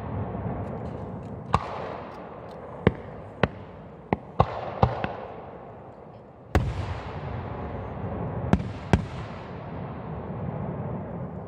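Aerial firework shells bursting overhead: about nine sharp bangs at uneven intervals, each trailing off in a rolling echo, with the loudest about six and a half seconds in.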